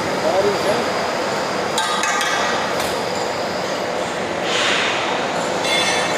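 Metal parts or tools clinking and being tapped: three sharp strikes about two seconds in, then two longer ringing rattles near the end, over a steady background noise.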